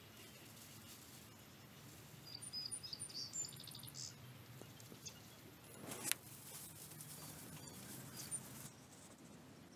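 A flurry of short, high bird chirps for about two seconds, then a single sharp click about six seconds in, over a quiet outdoor background.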